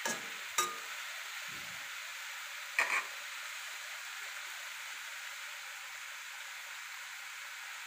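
Paneer cubes sizzling steadily in hot oil in a kadai, with a few short taps of the spatula against the pan in the first three seconds.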